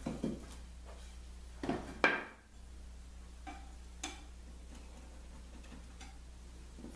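A few sparse clinks and knocks of hard objects being handled or set down, the loudest about two seconds in with a short ring, over a steady low hum.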